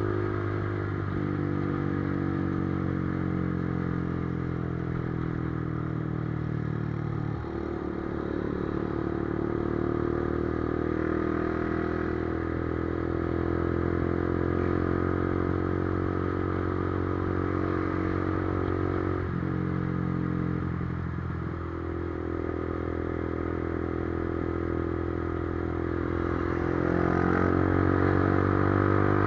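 Motorcycle engine and exhaust running steadily under way. It breaks off briefly and picks up again twice, about seven and nineteen seconds in, and grows a little louder near the end.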